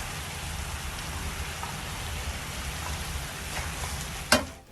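Chicken frying in oil in a hot skillet over high heat: a steady sizzle that stops abruptly near the end.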